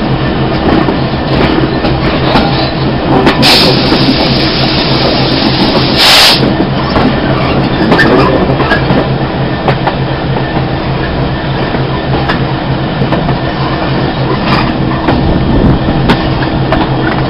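A moving train heard from an open coach window: the hauling Class 66 diesel's GM two-stroke V12 engine runs steadily under power, under a rush of wind, with wheels clicking over the rail joints. Two brief loud rushes of noise come about three and a half and six seconds in.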